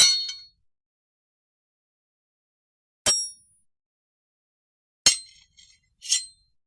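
Sword blades clashing: four sharp metallic clangs, each ringing briefly. One comes at the start, one about three seconds in, and two close together near the end, the third followed by a couple of light clinks.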